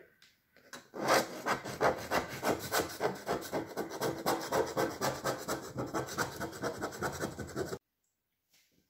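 Kitchen knife sawing back and forth around the inside edge of a metal ring cake pan, scraping against the pan wall to loosen a baked sponge cake: quick rhythmic strokes, several a second, that stop abruptly near the end.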